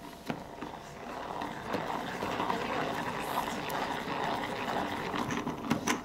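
Plastic salad spinner whirring steadily as it spins the water out of a washed bird skin, the whir building up over the first second or so, with a few sharp clicks near the end.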